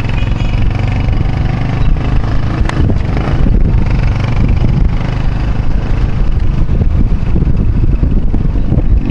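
Motorcycle engine of a tricycle (motorcycle with sidecar) running steadily under way, a loud low rumble heard from inside the sidecar.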